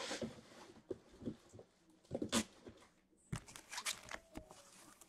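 Sealed hockey card packs being handled and stacked on a table: soft wrapper rustling with a few light taps and clicks, the sharpest about two and a half seconds in.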